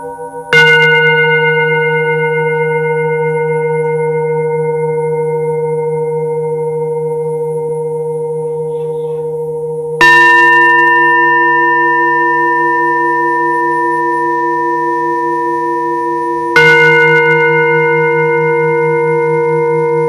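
Two Himalayan singing bowls struck in turn, three strikes in all: about half a second in, about halfway through, and near three-quarters. Each strike rings on with several steady overtones and a slowly wavering low hum that overlaps the ringing still going. The middle strike is the second bowl, with a different set of tones.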